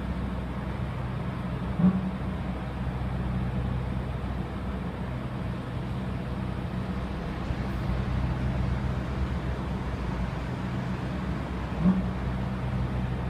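A broken air conditioner running with a steady low hum, and banging twice, about ten seconds apart: once about two seconds in and once near the end.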